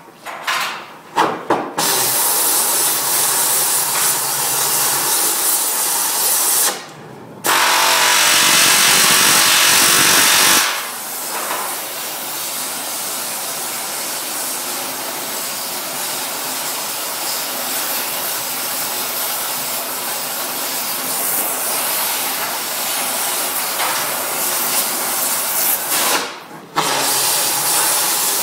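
A metalworking tool running on a steel chassis with a loud, steady hiss. It starts and stops a few times in the first two seconds, pauses for about a second around seven seconds in, and briefly stops again near the end.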